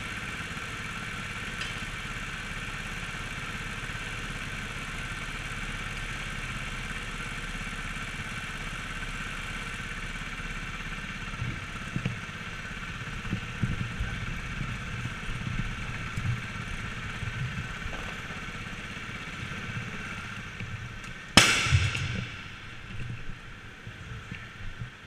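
Go-kart running with a steady hum while it waits in the pit lane, then rolling with uneven knocks and rattles. One sharp, loud bang about 21 seconds in.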